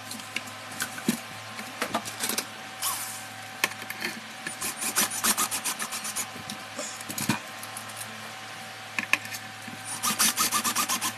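Hands working on an open aluminium inverter casing: scraping and knocks on the metal, with two runs of quick, even clicks, one about five seconds in and one near the end, over a faint steady hum.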